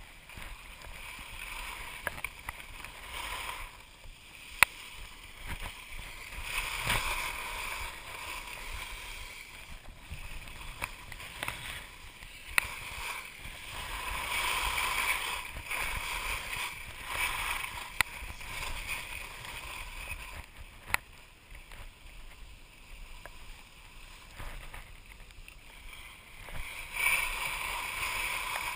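Skis scraping and carving over firm groomed snow: a hissing swish that swells and fades with each turn, with a few sharp clicks along the way.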